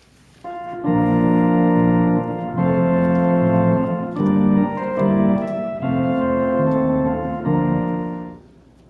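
An organ playing a short passage of held chords that change every second or two. It starts about half a second in and stops near the end.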